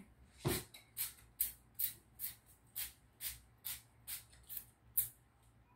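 Olive oil spray bottle being pumped over a pizza pan: about eleven short hissing spritzes, roughly two a second.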